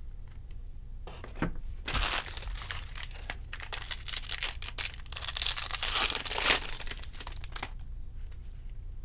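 Foil wrapper of a 2020 Topps Series 2 jumbo card pack being torn open and crinkled, starting about two seconds in and lasting about six seconds.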